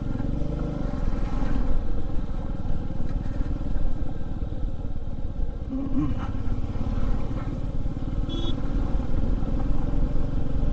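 Motorcycle engine running steadily under way on a rough dirt road.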